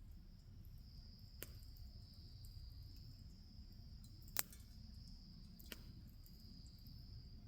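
Wood fire crackling quietly, with three sharp pops, the loudest about four and a half seconds in, over a steady high insect trill.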